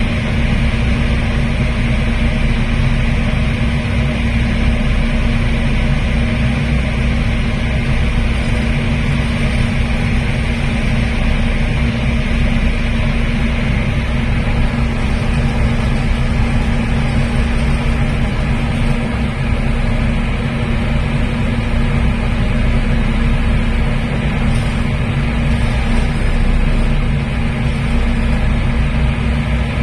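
High-speed passenger boat under way, heard from its open deck: a loud, steady engine drone with a constant low hum and a wash of noise over it.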